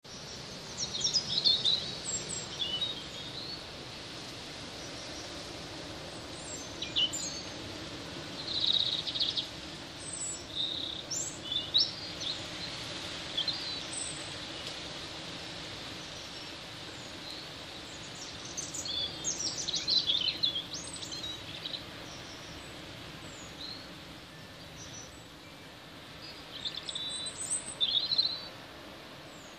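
Small birds chirping and calling in quick clusters every few seconds, over a steady hiss of rain and wind.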